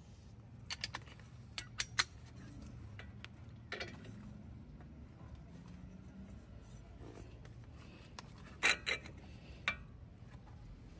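Hand tools on a car's front suspension bolts: scattered sharp metal clinks and scrapes of a socket wrench and a long extension bar. There are a few strikes in the first two seconds and a louder cluster about nine seconds in.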